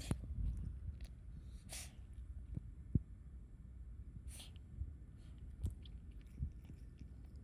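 A cat with asthma giving short, sharp sneeze-like coughs, forcing out puffs of air as if about to vomit but bringing nothing up: one right at the start, then two more about two and four and a half seconds in. The fits are a sign of feline asthma, as a vet diagnosed. A few soft knocks fall between them.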